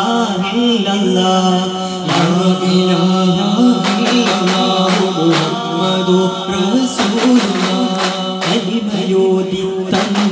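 Male voices chanting a Malayalam devotional song in long held lines, with daf frame drums struck together in short bursts of beats every few seconds.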